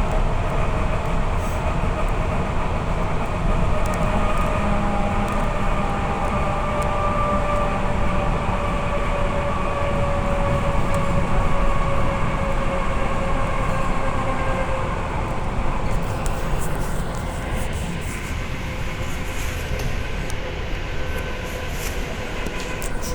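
Suburban electric train running: a steady rumble of wheels on track with a faint motor whine that slowly falls in pitch. From about two-thirds through, the rumble eases and scattered sharp ticks and squeaks come in.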